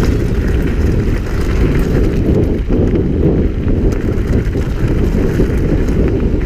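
Wind buffeting the microphone during a mountain-bike ride: a loud, steady, low rumble, with a few faint clicks from the bike on top.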